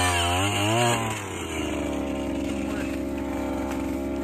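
Gas-powered ice auger engine running hard under load as it bores through the ice, its pitch wavering; about a second in it drops to a quieter, steadier run as the auger comes free of the hole.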